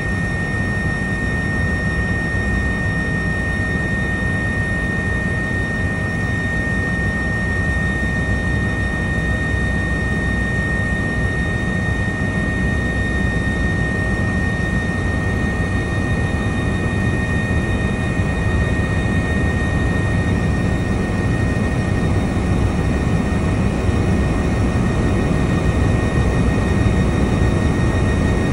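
Airbus H145 twin-engine helicopter in flight, heard on board: a steady, loud drone of rotor and engine noise with a high, steady whine running through it, getting a little louder near the end.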